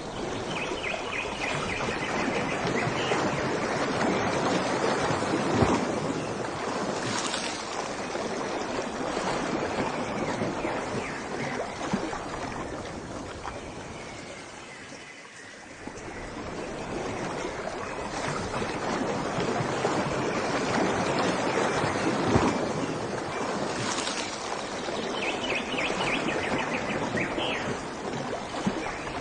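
Rushing water, a steady noisy wash that swells and eases, dipping briefly about halfway through. Faint high chirping trills come at the start and again near the end.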